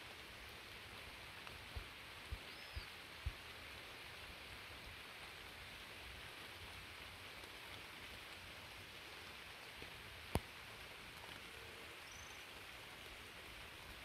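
Faint, steady hiss of rain falling. Four dull knocks come about two to three seconds in, and one sharp click about ten seconds in.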